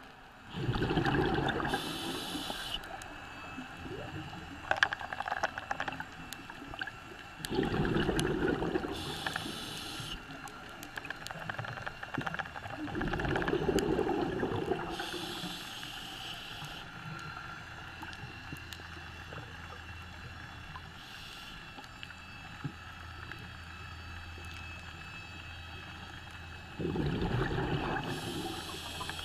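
Scuba diver breathing underwater through a regulator: four bursts of exhaled bubbles a few seconds apart, most followed by a short high hiss, over a quieter steady background.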